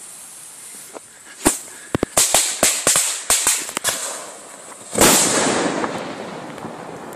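A lit firework fuse hisses, then about a dozen sharp firecracker bangs go off in a quick, irregular string. About five seconds in comes one heavier bang with a long echoing tail.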